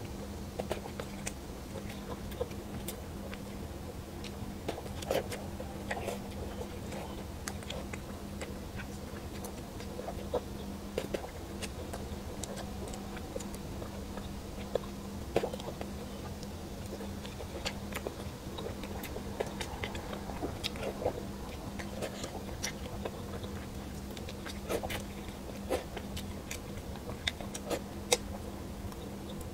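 A person eating braised fish with chopsticks close to the microphone: scattered small clicks and smacks of chewing and picking at the fish, over a steady low hum.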